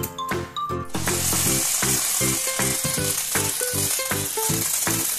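Upbeat children's background music; about a second in, a loud steady hiss joins it, the remote-control stunt car's electric motors and wheels running on the floor.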